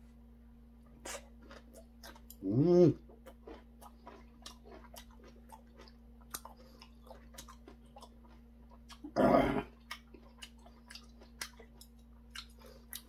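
A person chewing a mouthful of cabbage kimchi close to the microphone: many small wet crunches and mouth clicks. Two short hummed vocal sounds come about two and a half seconds in and about nine seconds in, over a faint steady hum.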